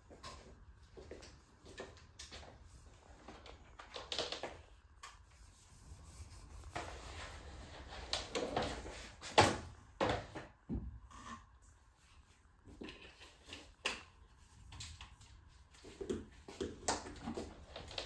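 Bosch BGS21X320 bagless canister vacuum cleaner being handled while switched off: scattered plastic clicks and knocks from its hose, wand and body being moved, with one sharp knock about nine seconds in.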